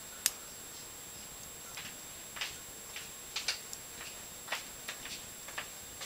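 Irregular small metal clicks and ticks of a lock pick working the pin stack in the tight keyway of a Master Lock No. 101 laminated steel padlock held under tension. One sharper click comes just after the start, then fainter scattered ticks.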